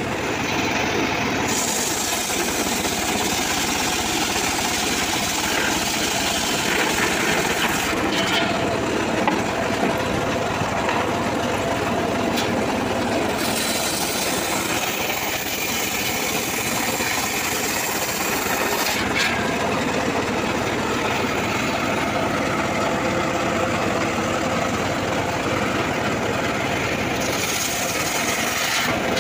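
Homemade engine-driven circular sawbench running steadily while its large blade rips a teak log into planks. A higher cutting hiss strengthens and eases several times over the engine's steady running.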